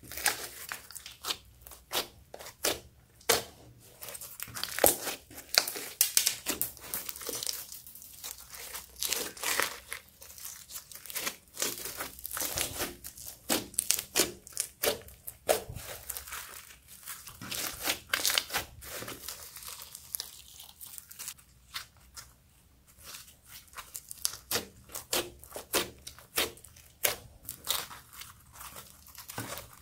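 Hands kneading, squeezing and stretching a lump of slime packed with foam beads, giving quick, irregular crackles and pops, with a quieter stretch a little past the middle.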